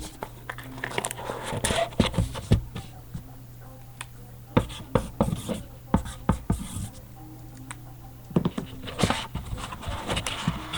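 Hands opening a trading-card box and handling its cardboard and cards: scattered sharp clicks, scrapes and rustles over a steady low hum.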